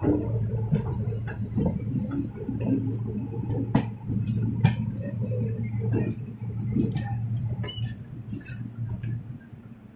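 Indian Railways passenger trains running on adjacent tracks: a steady low rumble of wheels on rail with frequent irregular clicks and clanks from wheels and couplings, dying away near the end.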